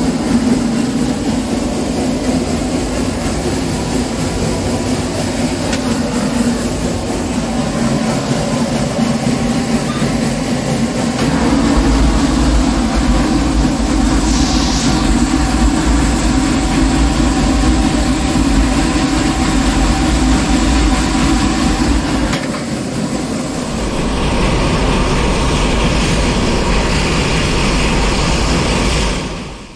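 Steam locomotive working hard, heard from inside the cab by its open firebox: a steady, loud running noise that grows heavier in the low rumble partway through. Near the end it is heard from outside the cab, beside the boiler, as steam billows out.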